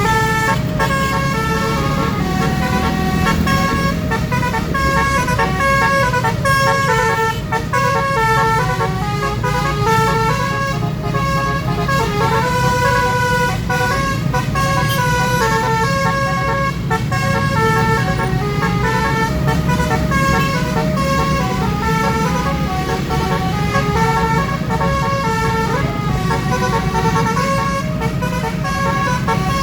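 Basuri musical horn playing a continuous melody of stepped notes over the steady low rumble of a vehicle engine.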